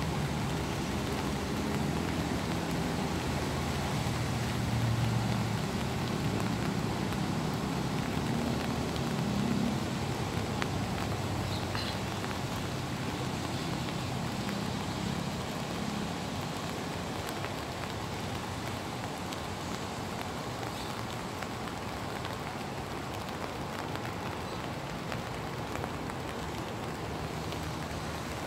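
Steady rain falling, an even hiss with patter. Under it, a low engine rumble fades out about halfway through.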